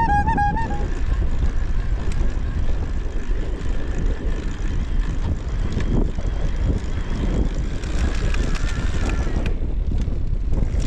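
Strong headwind buffeting the microphone in a steady low rumble while riding an electric recumbent trike along an asphalt road.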